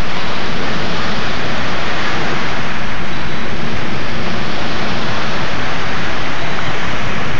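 Small waves washing in on the shore, a loud, steady rush of noise with no breaks.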